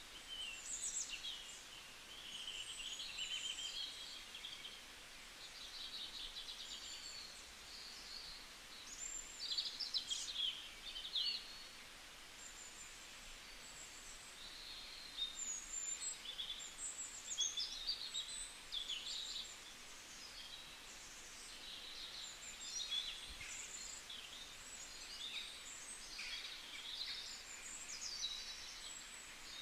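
Several birds chirping and trilling almost without pause, short high-pitched calls and quick rising and falling notes, over a faint steady hiss.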